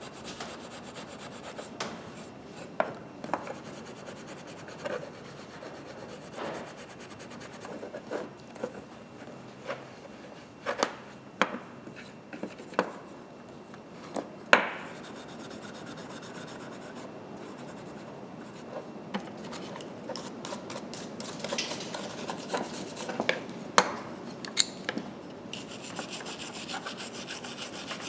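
Hand scrubbing of freshly cold-blued steel grooved pliers to even out the bluing: a steady rubbing scratch, broken by scattered sharp clicks and knocks of the metal tool being handled.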